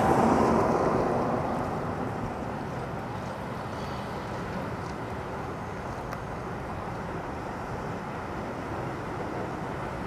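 Steady wash of wind and bay water at the shoreline in a gap between fog horn blasts, louder for the first second or two and then even.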